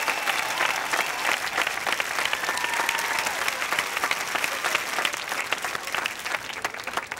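A crowd applauding, dense clapping with a few cheers mixed in; the clapping dies down near the end.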